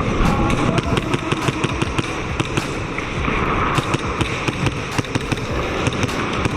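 Airsoft guns firing: many sharp, irregular shots, several a second, over a steady low rumble.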